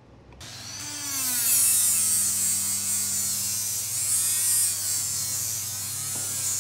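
Small electric rotary tool starting up and working on the rusty steel receiver of an air gun, a high hiss of the attachment on the metal over a motor whine that sags and picks up again as it is pressed on and eased off.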